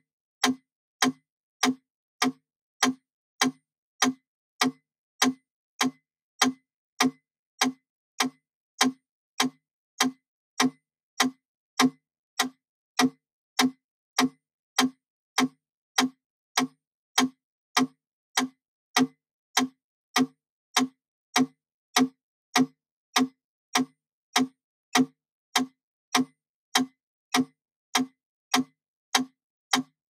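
Wooden mechanical pendulum metronome ticking steadily at 100 beats per minute: one crisp click about every 0.6 seconds, every beat alike.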